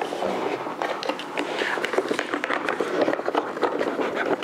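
Plastic clicking and scraping in quick succession as a GoPro Volta battery grip is handled and worked out of its moulded carrying case.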